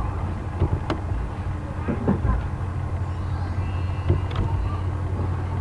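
Steady low hum and rumble of background noise, with a couple of short clicks.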